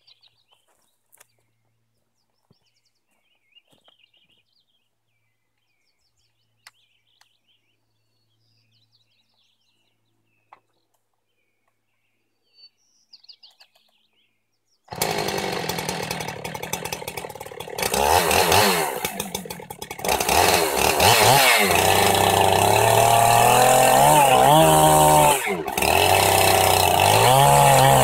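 Near silence for about fifteen seconds, then a Husqvarna 390XP two-stroke chainsaw with a 28-inch bar and ripping chain, mounted in a Granberg Mini Mill, comes in suddenly and runs loudly, revving up and down several times.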